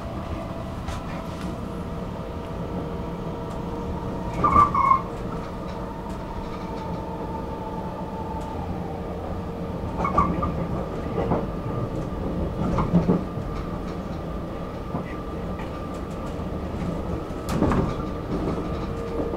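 Stockholm metro train running on surface track, heard from inside the carriage: a steady rumble and motor hum, with louder clatter over the rails four times, about 4, 10, 13 and 17 seconds in, the first with a brief squeal.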